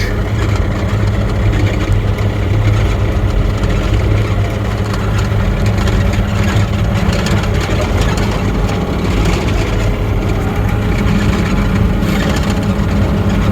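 Mini excavator's diesel engine running steadily under load as the machine travels in its high-speed ('rabbit') travel range.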